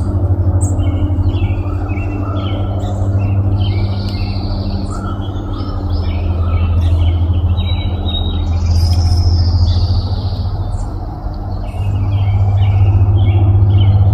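Small songbirds chirping repeatedly, many short calls overlapping, over a loud steady low hum.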